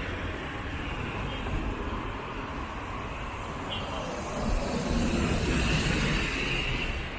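Busy city-street traffic noise: road vehicles running past, with a louder stretch for a couple of seconds from about four and a half seconds in as traffic passes close by.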